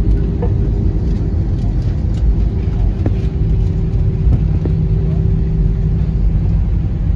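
Airbus A320 cabin noise from a window seat over the wing as the jet rolls along the ground after landing: a steady, loud engine and rolling rumble with a steady hum, and a few faint clicks.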